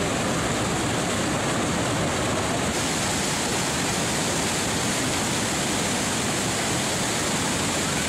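Niagara Falls: a steady rush of water pouring over the falls and crashing onto the rocks below. It turns hissier about three seconds in.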